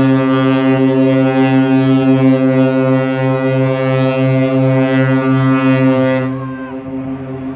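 AIDAprima cruise ship's horn sounding one long, deep, steady blast that stops about six seconds in, leaving a short echo.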